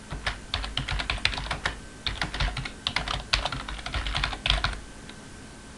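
Typing on a computer keyboard: a quick, uneven run of keystrokes that stops about a second before the end.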